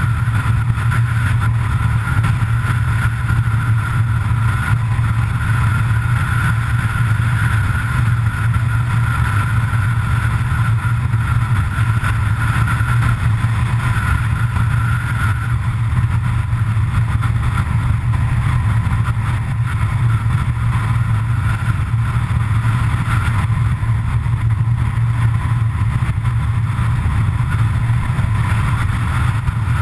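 A road vehicle driving at steady cruising speed: a constant low drone with tyre and road rush, heard from a camera mounted low on the outside of the vehicle.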